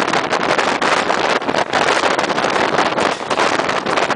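A passenger coach of an express train running at speed, with wind buffeting the microphone at the open window in a loud, uneven rush.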